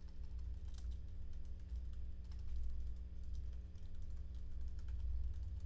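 Typing on a computer keyboard: a quick, irregular run of key clicks over a steady low electrical hum.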